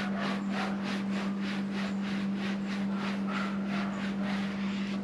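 Quick back-and-forth wiping strokes on a motorcycle fuel tank, about four a second, cleaning the surface before tank pads go on. A steady low hum runs underneath.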